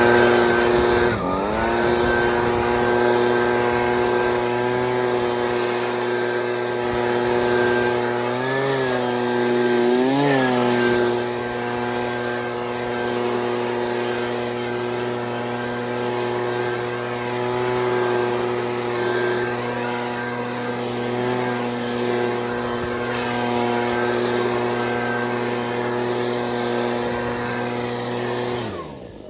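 Gas-powered leaf blower's two-stroke engine held at full throttle with a steady high whine, dipping briefly about a second in and blipping twice near the middle, then throttled off and winding down at the end.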